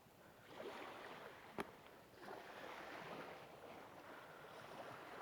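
Small waves lapping at the shore, a soft wash that swells and fades every second or two, with a single sharp click about a second and a half in.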